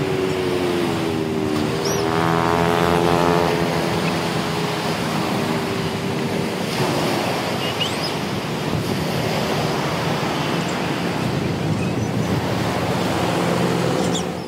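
Sea waves breaking and washing up on a beach, with wind buffeting the microphone. A motor's faint hum runs underneath, its pitch shifting about two to four seconds in.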